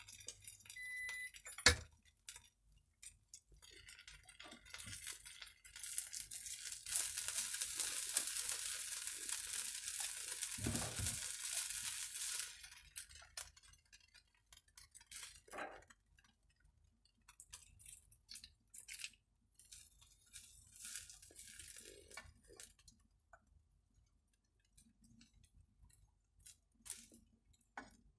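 Spatula clinking and scraping in a nonstick wok as pan-fried instant noodles are scooped onto a plate, in scattered knocks and scrapes, with a few seconds of steady hiss about a quarter of the way in.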